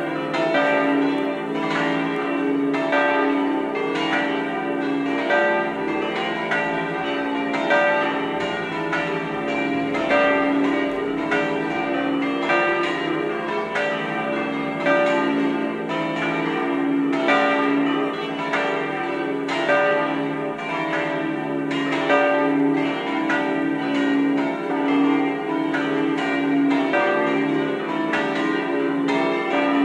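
Full swinging peal (distesa) of the seven smaller bronze church bells of a De Poli ring of eight, swinging with flying clappers, strokes overlapping several to the second with long ringing between them.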